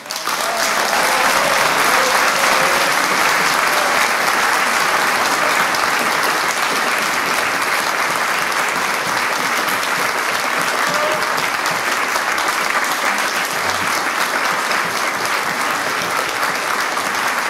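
Concert audience applauding, breaking out at once and holding dense and steady.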